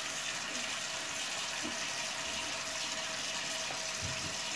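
Kitchen tap running, a steady stream of water splashing into the sink.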